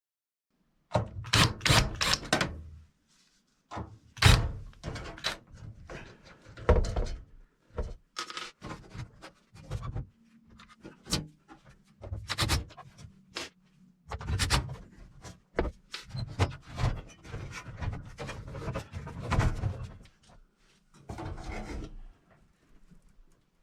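Irregular knocks, clunks and scraping of hard objects being handled and shifted, as when working on a microwave in its cabinet, with a few short pauses.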